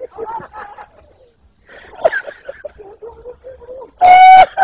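Several people shouting and calling out over each other, ending about four seconds in with one loud, held, level-pitched call lasting about half a second.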